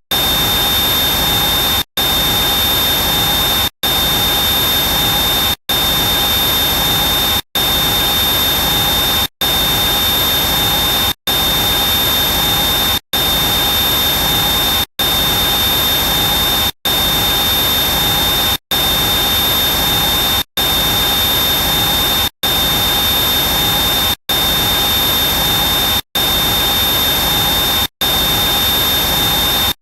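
Helicopter engine heard close up, running steadily: a loud rushing noise with a high whine held at one pitch. The sound cuts out briefly about every two seconds.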